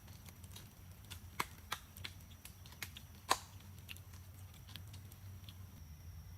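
A run of irregular, sharp clicks and snaps, the loudest a little over three seconds in, over a faint steady low hum.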